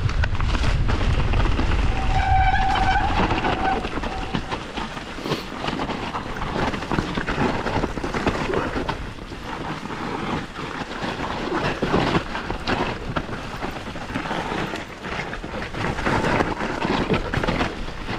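Santa Cruz Bronson mountain bike ridden down a rough woodland trail: tyres running over dirt and roots with constant rattling and clattering from chain and frame. Wind buffets the microphone, heaviest in the first few seconds, and a brief high squeal comes about two seconds in.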